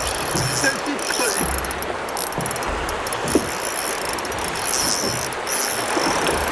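Spinning reel working against a hooked fish, its mechanism ticking in uneven runs over a steady rush of wind and water, with one short knock about three seconds in.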